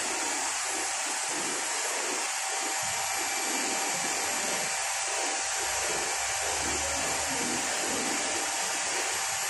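Brazing torch flame hissing steadily as it heats the copper refrigerant pipe joints of an indoor air-conditioning unit.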